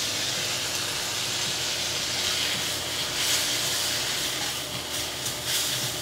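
Rice noodles and vegetables sizzling in a hot carbon steel wok as they are tossed with a metal spatula and chopsticks: a steady hiss with a few light scrapes near the end.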